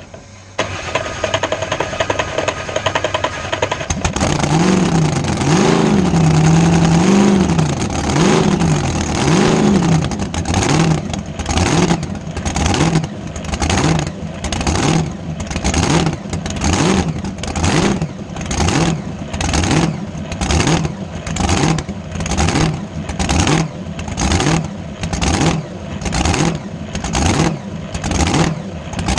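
Supercharged 540 cubic-inch gas engine of a flat-bottom drag boat, whining over on the starter and catching about four seconds in. It is revved up and down a few times, then runs with a rhythmic surge about once a second.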